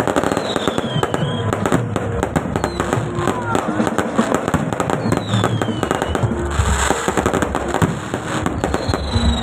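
Fireworks display: a dense, continuous barrage of bangs and crackles, with high whistles falling in pitch about three times.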